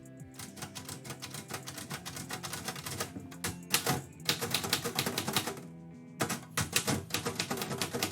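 Typewriter being typed on: fast runs of key strikes with a couple of brief pauses, over soft background music.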